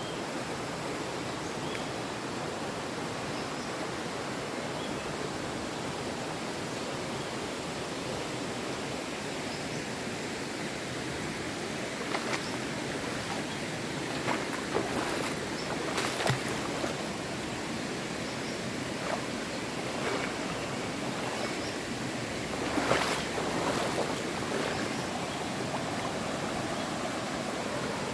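Mountain river rushing steadily over rocks, with a few short sharp sounds over the flow, the loudest about 23 seconds in.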